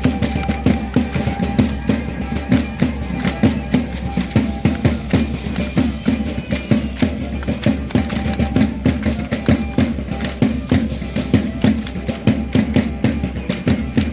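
Matachines dance music: a violin melody over a steady drum beat, with a dense rhythm of sharp clicks and knocks throughout.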